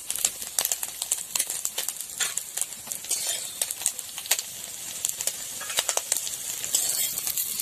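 Small puti fish frying in mustard oil in a wok, with a steady sizzle, while a metal spatula turning them scrapes and clicks against the pan again and again.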